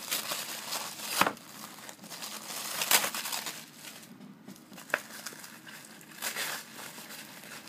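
Red tissue paper crinkling and rustling as it is unwrapped by hand, with a few sharper crackles about a second, three seconds and five seconds in.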